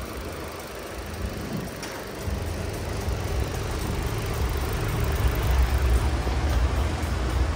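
Chevrolet Cruze 1.8 engine running steadily at idle, a low rumble that grows a little louder about two seconds in.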